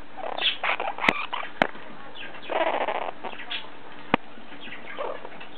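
Blue-crowned conure making short chirpy calls close to the microphone, with three sharp clicks of its beak pecking the camera, the first two about half a second apart and a third a few seconds later.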